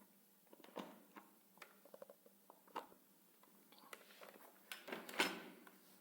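Faint, scattered clicks and knocks of handling, with one louder knock about five seconds in.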